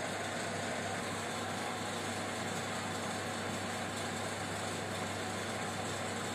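A steady, unchanging mechanical hum with a hiss, like a motor or fan running.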